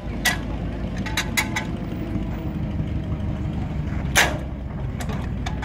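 Antique Avery tractor's engine being turned over by hand on its flywheel to start it: a steady low rumble underneath, a few sharp clicks about a second in, and one loud clack about four seconds in as the flywheel is pulled down.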